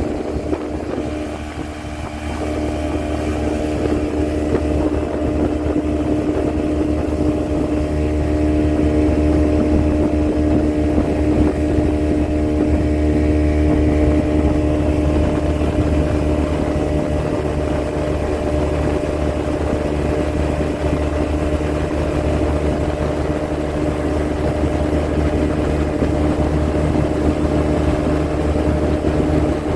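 Speedboat engine running steadily under way: a loud, even hum with a strong held pitch. It dips slightly about two seconds in, then picks up and holds steady.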